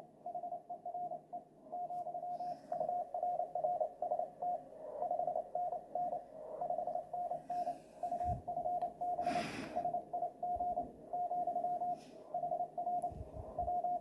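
Morse code (CW) from a ham radio station with an MFJ-464 CW keyer/reader: a single mid-pitched beep keyed on and off in quick dots and dashes. A short rustling noise breaks in about nine seconds in.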